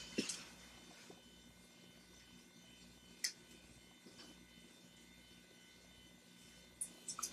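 A few brief, faint rustles of topknot wrapping paper being handled and wrapped around a dog's hair: one just after the start, one a little past three seconds, and a quick cluster near the end, over a steady low electrical hum.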